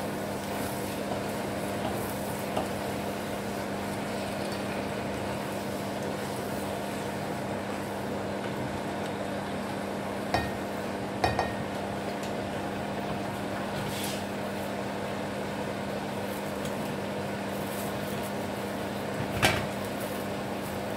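Flat rice noodles being stirred and tossed in a nonstick pan with a wooden spatula over a steady hum. A few knocks of the utensil on the pan come around the middle, and a louder knock comes near the end.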